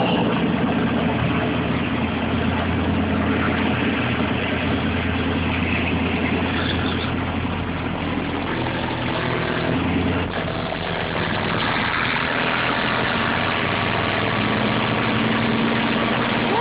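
A car engine idling steadily, kept running to recharge the batteries that power a high-output subwoofer system between bass burps.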